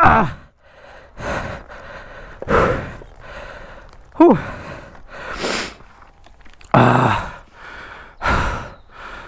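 A man panting hard, out of breath from exertion: loud breaths about every second and a half, some with a short groaning exhale that falls in pitch.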